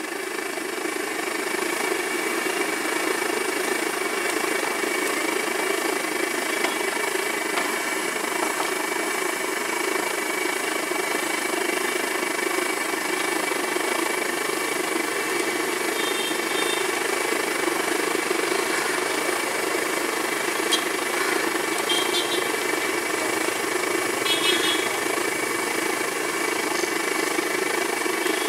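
Banana slices deep-frying in a large iron kadai of hot oil: a steady sizzle and bubbling, over a steady low rumble.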